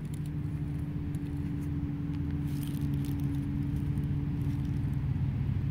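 A motor vehicle's engine running with a steady low hum, slowly growing louder.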